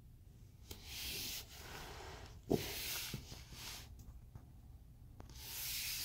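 Three soft hissing rushes of noise close to the microphone, each lasting about a second, with a few light clicks and a sharper knock about two and a half seconds in.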